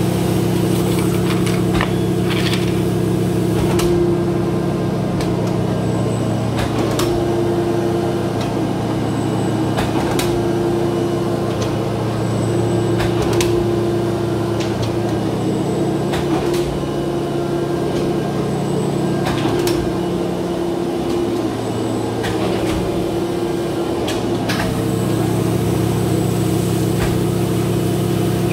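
Polar 115 X guillotine paper cutter running with a steady machine hum, broken by scattered sharp clicks and knocks.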